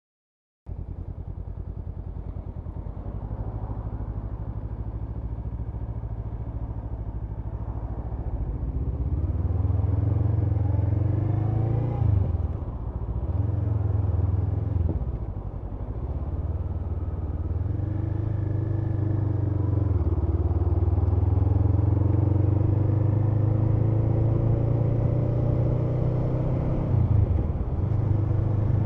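Honda CMX500 Rebel's parallel-twin engine running while riding. The engine note rises with speed and dips briefly a few times, as at gear changes.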